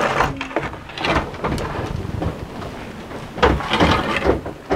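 Metal baking trays and a wooden peel scraping and knocking on the floor of a homemade bread oven as the trays are pushed in, with a louder scrape about three and a half seconds in.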